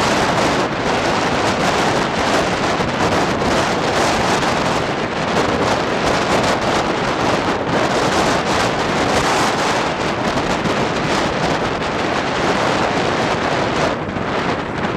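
Strong wind rushing and buffeting the microphone, a loud steady roar with no pauses.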